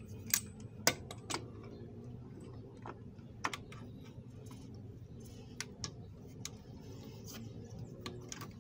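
Hand tools clicking and tapping on the plastic oil filter housing cap of a VW Amarok diesel engine: a socket, extensions and a ratchet being fitted and worked on the stubborn cap. A few sharp metal clicks come in the first second and a half, then lighter scattered ticks.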